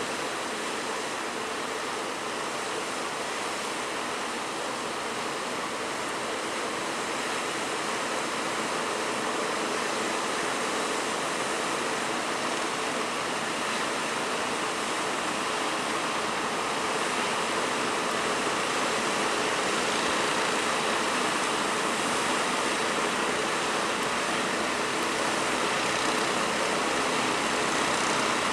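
Rough sea: a steady rushing of waves in bad weather, growing slightly louder toward the end.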